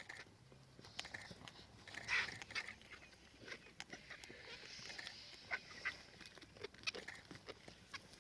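Faint, scattered short squawks, squeaks and clicks from animals, loudest about two seconds in.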